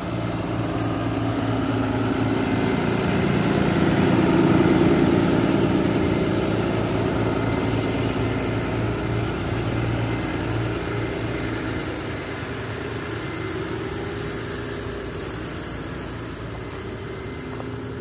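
Ford F-750 Super Duty truck's engine idling steadily, loudest about five seconds in and fading toward the end.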